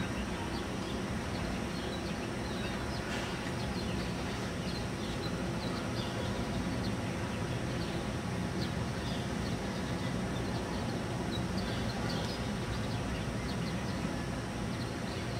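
Birds chirping many times over a steady low rumble of outdoor background noise.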